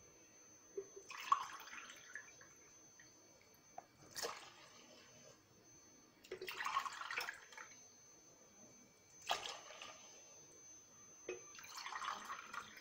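Water poured from a drinking glass into a stainless steel pot in several separate splashing pours, each about a second long and a few seconds apart. A short sharp knock comes at the start of two of them.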